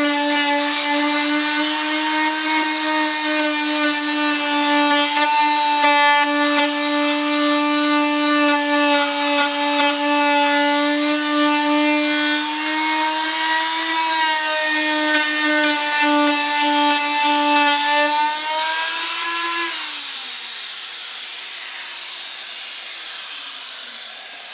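Fein MultiMaster oscillating tool with a 100-grit sanding pad, sanding glue out of the inside corner of a drawer: a steady high-pitched hum whose pitch wavers slightly. About 19 seconds in it is switched off and winds down with falling pitch, leaving a steady hiss.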